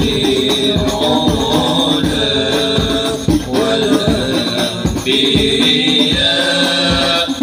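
A group of men's voices chanting a devotional song together, with hand drums beating a steady rhythm.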